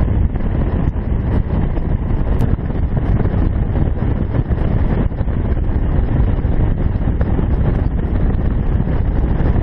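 Steady wind rushing and buffeting over the microphone of a motorcycle-mounted camera while cruising at road speed. It is a loud, low, unbroken rumble.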